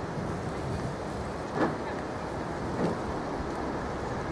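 Central Tramway funicular car running down its inclined rails, a steady rumble with two clunks about a second and a quarter apart.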